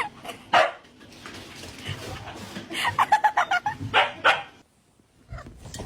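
A dog barking, with a quick run of short yips about three seconds in.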